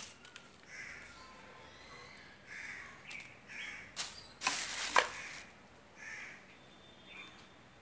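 Crows cawing, several separate calls spread through the stretch. About four to five seconds in there is a click and then a loud rustle of a plastic bag being handled, ending in a sharp snap.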